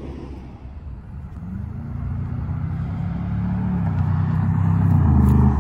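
A car's engine running and growing steadily louder as the car approaches, loudest near the end.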